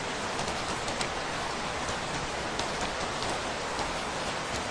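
Steady rain falling, a constant hiss with scattered sharp drop impacts ticking through it.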